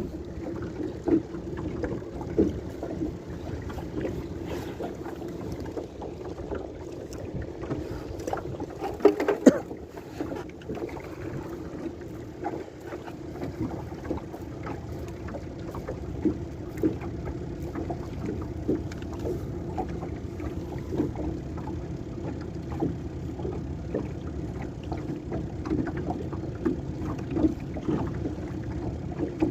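Small boat on the sea: water slapping against the hull with frequent small knocks over a steady low hum.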